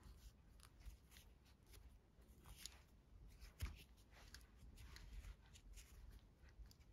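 Faint rustling and scraping of nylon paracord being drawn through a woven macramé collar with a metal crochet hook, with scattered soft clicks, the sharpest about three and a half seconds in.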